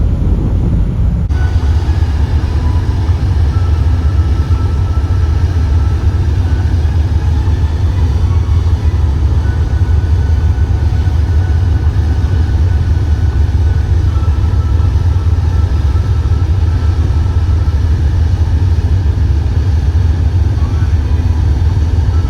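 Deep, steady engine drone of the ferry Asakaze 21 heard on board, a continuous low rumble with a faint high hum above it. The sound shifts abruptly about a second in.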